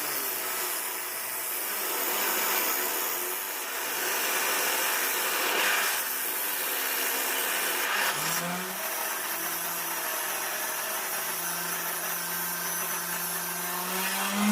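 A power tool running and cutting, a steady hissing grind over a motor hum; the hum rises in pitch about eight seconds in and again near the end.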